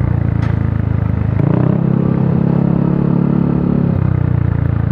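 Motorcycle engine running under way, heard from the bike itself with road and wind noise, its note shifting about a second and a half in and again near four seconds as the throttle changes.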